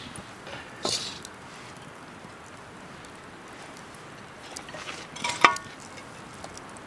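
Cooked oysters being served out of a cast-iron pan onto plates: a utensil scrapes briefly about a second in, then clinks sharply against a plate with a short ring about five and a half seconds in, over a faint steady outdoor hiss.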